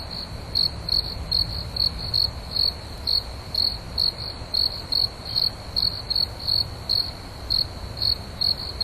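Crickets chirping at night in a steady rhythm, about two to three high chirps a second over a continuous high trill.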